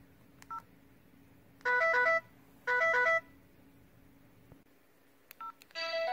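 LG CU515 flip phone's low-battery alert: a short phrase of quick electronic beeps in stepped pitches, played twice about a second apart. Short two-note phone blips come before and after it, and another beep phrase starts near the end as the low-battery warning shows.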